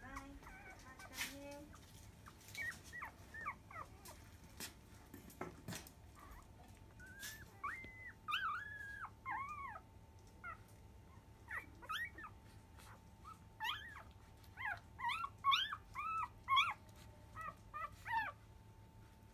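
Five-day-old Labrador Retriever puppies squeaking and whimpering while they nurse: many short, high-pitched cries, coming thicker and louder in the second half, with a few faint clicks.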